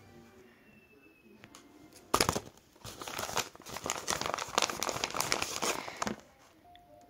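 Paper crinkling and rustling as a handmade paper squishy bag is handled. It begins with a sharp crackle about two seconds in, runs on as a dense crackly rustle, and stops about a second before the end.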